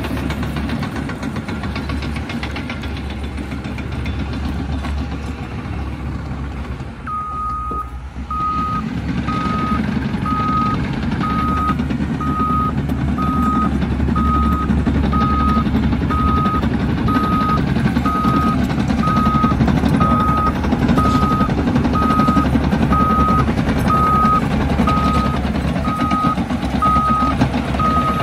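Cat D6K bulldozer's diesel engine running under load. About seven seconds in it dips briefly, then comes back stronger as the backup alarm starts beeping steadily, a little more than once a second: the dozer is reversing.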